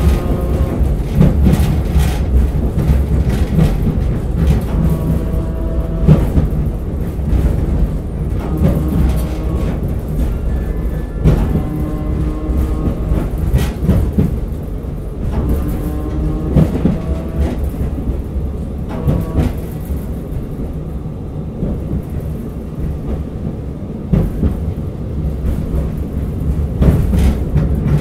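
Sapporo streetcar M100-series tram M101 running along the street, heard from on board: a steady low rumble with knocks every second or two from the wheels over rail joints, and short pitched tones from the running gear. It quietens for a few seconds in the second half, then grows louder again near the end.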